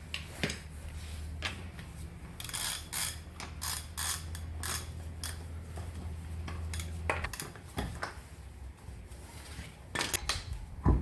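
Lug nuts being taken off a car wheel with a hand ratchet: repeated ratchet clicking and metal scraping, with a loud knock near the end. A low steady hum runs underneath and stops about seven seconds in.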